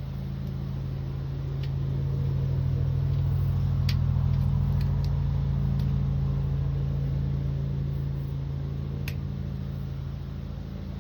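Steady low mechanical hum that swells louder for several seconds in the middle and then eases off, with a few light clicks over it.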